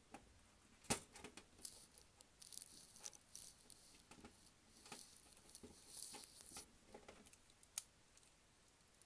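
Faint handling of a small model locomotive chassis and its gears: light scratchy rustling and small clicks, with a sharper click about a second in.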